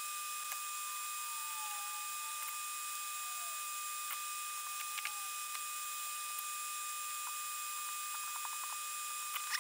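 Steady whine and hiss of a small solder-smoke extraction fan, with a few light clicks from handling wire and parts, clustered near the end.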